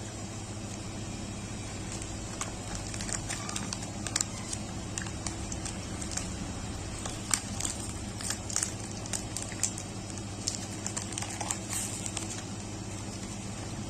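Plastic snack packaging crinkling and rustling in irregular crackles as it is handled, over a steady low hum.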